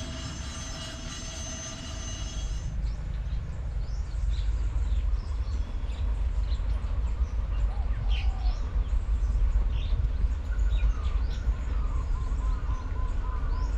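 A freight train's steel wheels squeal on the rails with several steady high tones for about the first three seconds, then stop abruptly. The rest is a steady low rumble with birds chirping, and a run of short repeated calls near the end.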